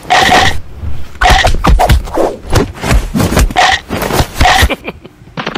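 Loud dubbed fight sound effects: irregular bursts of hits and whooshes, with the same short sample recurring about four times. They drop off briefly near the end, and then a fast, even rattling rhythm begins.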